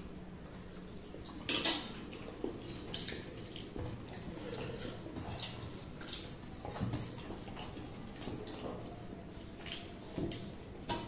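Two people eating rice and chicken curry by hand from metal plates: scattered wet clicks and squishes of fingers mixing the food and of chewing, with light taps of fingers on the plates.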